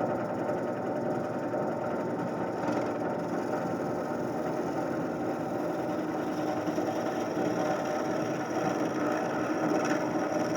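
Wood lathe running steadily with a mahogany blank spinning on it, an even machine hum with no sharp knocks.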